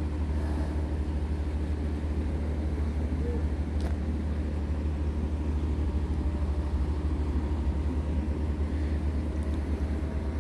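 A steady low engine drone, holding one even pitch throughout.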